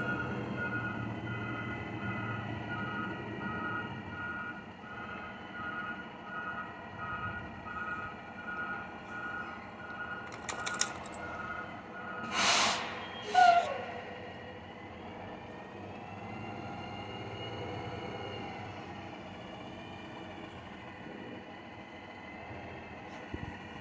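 A motor vehicle running steadily, with a short electronic beep repeating about one and a half times a second for the first half. Two loud short noises come about halfway through.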